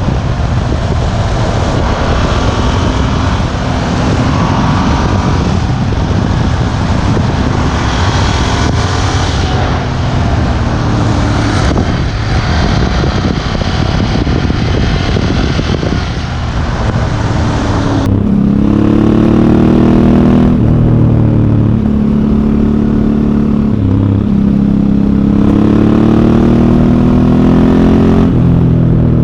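Ducati Hypermotard 1100S's air-cooled L-twin engine on its stock exhaust, running under way with heavy wind and road noise. About 18 seconds in the wind noise drops away and the engine's deep note comes forward, rising and falling through several throttle changes.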